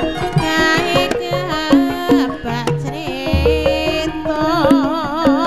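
Music playing: hand-drum strokes under a melody of held notes, with a strongly wavering line entering about four seconds in and a deep bass note coming in shortly before.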